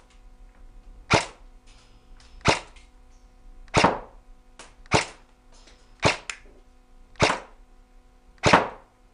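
VFC Avalon Samurai Edge airsoft electric gun firing single shots on semi-auto: seven shots about 1.2 seconds apart, with fainter ticks between some of them.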